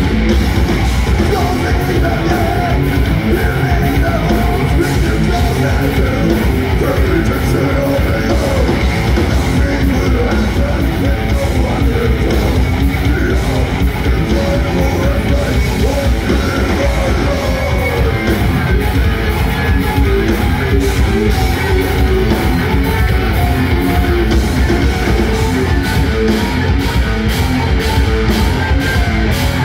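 Heavy metal band playing live: distorted electric guitars, bass and drums, with a singer's vocals over them.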